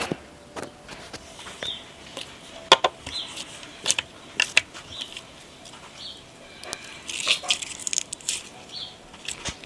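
Slime being pressed and worked by hand, giving irregular sharp clicks and pops. Short high chirps come every second or two behind it.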